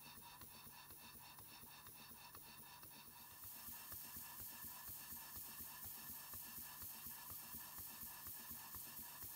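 Stuart Turner Victoria model mill steam engine running steadily, with a light, even ticking from its moving parts and a hiss that pulses with each stroke. About three and a half seconds in, the hiss gets louder and beats about two and a half times a second.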